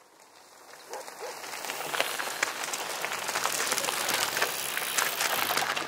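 Bicycle tyres rolling over loose gravel: a rising hiss with many small crunching clicks, fading in over the first two seconds.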